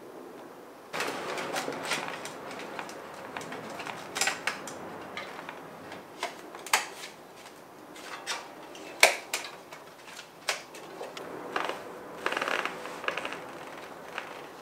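Hands fitting a Crud RoadRacer Mk3 plastic mudguard to a bicycle's front fork. Rustling handling starts about a second in, followed by a string of sharp plastic clicks and snaps at irregular intervals.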